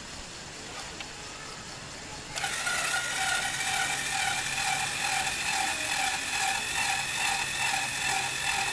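LEGO machine's motors and plastic gears starting up about two seconds in, then running with a steady whir and an even, rapid clicking of gears.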